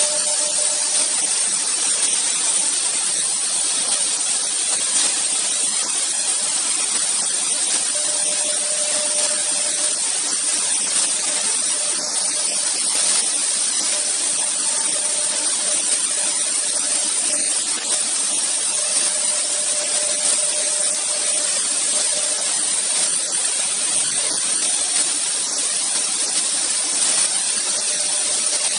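The two spindles of an AKM1325-2 double-head CNC router running at high speed and carving wood together: a steady, loud, high whine-and-hiss of the cutting bits, with a lower tone that comes and goes every few seconds as the heads move through the cut.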